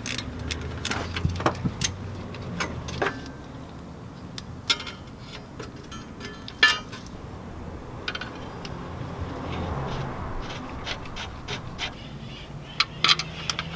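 Scattered light metallic clicks and clinks of hand work: an aluminium adapter plate being set against the back of an engine block and its bolts started by hand.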